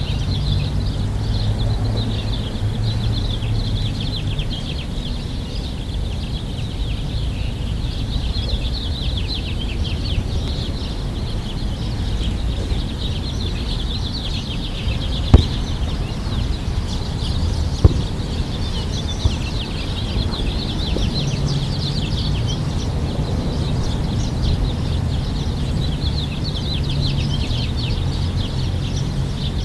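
Many small birds chirping all together in a continuous chorus over a low hum. Two sharp knocks sound about halfway through.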